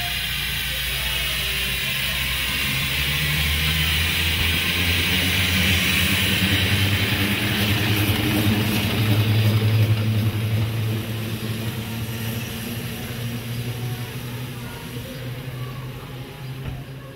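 Steam-powered bus driving past with a low rumble and hiss, growing louder as it approaches, passing close about nine to ten seconds in, then fading as it pulls away.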